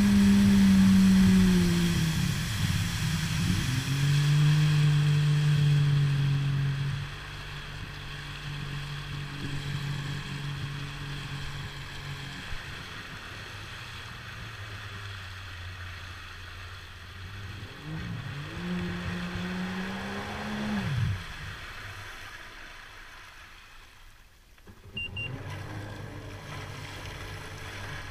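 Yamaha GP1200R jet ski's two-stroke triple engine running under way, then throttled back. Near the two-thirds mark it revs up briefly and drops away, fades almost out for a couple of seconds, then comes back at a low idle, with water rushing and splashing under the hull.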